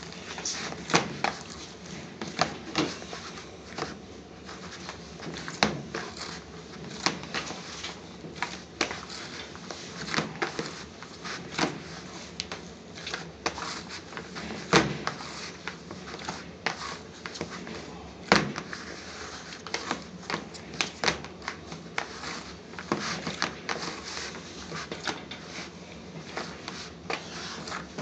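Chapati dough being kneaded and beaten by hand in a bowl: irregular soft thumps and slaps, about one or two a second, as the dough is pressed, folded and knocked down against the bowl.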